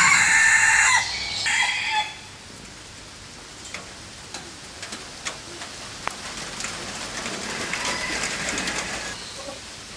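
A rooster crows loudly at the start, one crow that breaks off about a second in and a shorter second part ending about two seconds in. Then comes a steady background of rain with scattered single drips, and a fainter, longer rooster crow toward the end.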